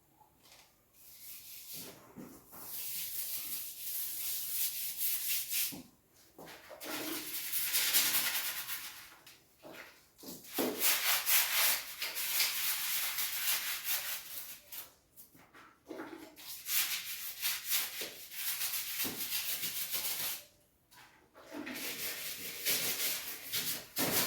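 Toilet brush scrubbing a toilet bowl: rough scratchy scrubbing in bouts of a few seconds each, broken by short pauses.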